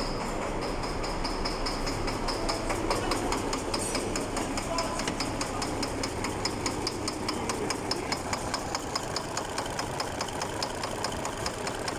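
MAN D2876 inline-six diesel idling with a sharp, regular knock from a faulty fuel injector, several knocks a second in time with the engine. The owner reckons the knocking injector is most likely on cylinder one.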